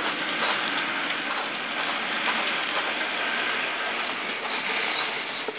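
Hornby model coal train with loaded hopper wagons running past on the track: a steady, loud rattle of wheels on rail, peppered with frequent clicks.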